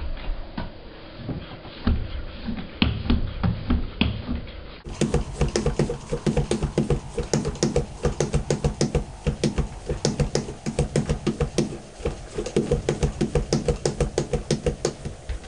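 A floor-standing bicycle pump worked by hand in quick strokes, pumping air through a Schrader valve into a PVC air cannon's pressure chamber. The strokes are uneven at first and settle into a fast, steady rhythm about five seconds in.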